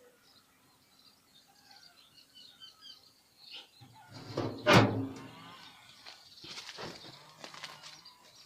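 Small birds chirping over a quiet yard, then about four and a half seconds in a loud metallic scrape and clank as the steel lid is set onto the oil-drum smoker, followed by a couple of fainter scrapes.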